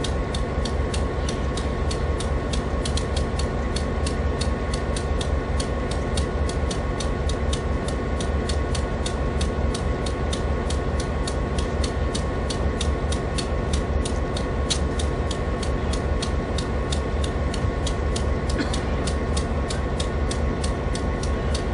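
Norfolk & Western Class J 611 steam locomotive standing at rest, giving a steady mechanical hum over a low rumble, with a fast, even ticking of about four or five clicks a second.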